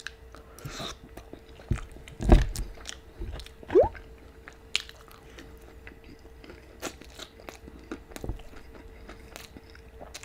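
Close-miked eating: a person chewing a mouthful of food, with many small wet mouth clicks and smacks and a few heavier bites about two seconds in. A brief rising squeak from the mouth comes near four seconds in.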